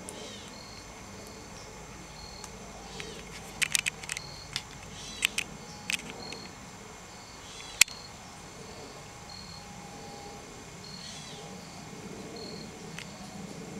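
Woodland insects chirping: a short high chirp repeats about once a second over a faint steady high hum. A few sharp clicks come in a cluster a few seconds in, with one louder click about eight seconds in.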